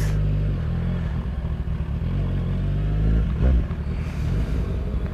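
Kawasaki Z1000's inline-four engine running at low speed as the motorcycle rolls slowly along, with a short swell about three seconds in.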